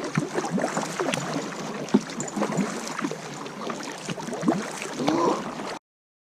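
Water gurgling and splashing around a kayak on the move, with quick drips and small bubbling sounds; the sound cuts off suddenly near the end.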